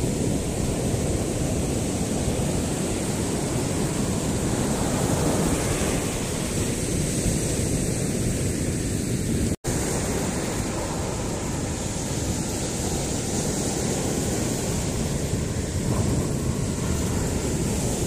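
Steady sea surf with wind rumbling on the microphone. The sound drops out for an instant about ten seconds in.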